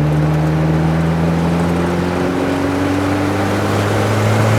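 The 2.3-litre turbocharged four-cylinder engine of a 1986 Ford Thunderbird Turbo Coupe, pulling under boost during a test drive. Its note climbs slowly and steadily.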